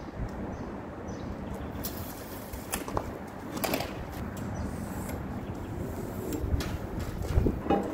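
Wind rumbling on the microphone, with a few light clicks and knocks as a tape measure and a rusty steel plate are handled against the bucket's steel side.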